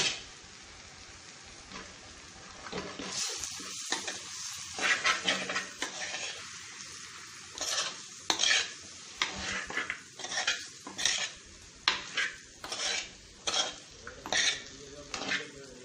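A metal spoon stirring masala-coated chicken in an earthenware clay pot, scraping against the pot in uneven strokes about once or twice a second from about three seconds in, over a steady sizzle of the frying meat.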